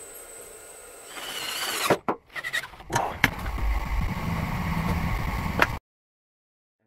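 Electric drill boring through a steel motor-mount plate, heard in short clips joined by abrupt cuts, the loudest stretch a rough low-pitched grinding; the sound stops dead near the end.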